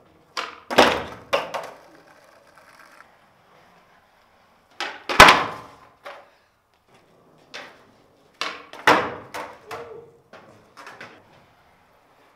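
Skateboard tricks on a hard floor: sharp wooden clacks of tail pops and the deck and wheels slapping down and clattering. They come in four bursts of attempts, each echoing in the large empty hall.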